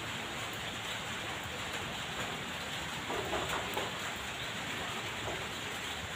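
Steady outdoor background hiss, with a few faint soft sounds about three seconds in.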